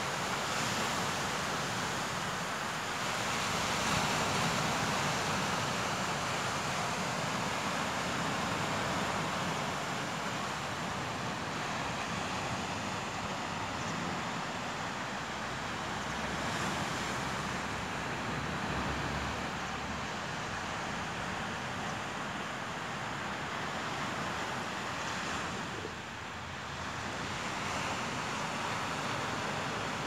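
Surf breaking and washing on a sandy beach, a steady rushing noise that swells and eases, with wind on the microphone.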